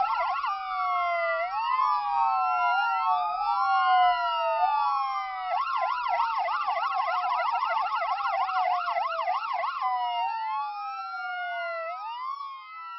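Ambulance siren sound effect: a wail slowly rising and falling in pitch, switching to a fast up-and-down yelp for about four seconds in the middle, then back to the wail and fading near the end.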